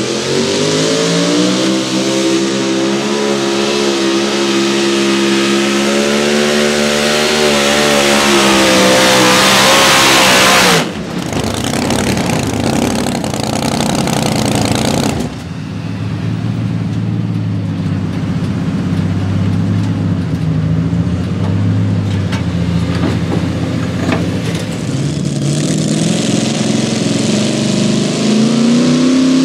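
Supercharged engine of a super modified two-wheel-drive pulling truck running at full throttle under the sled's load, its pitch slowly falling as the sled bogs it down, then cutting off suddenly about eleven seconds in. Lower engine running follows. Near the end another pulling truck's engine revs up, rising in pitch.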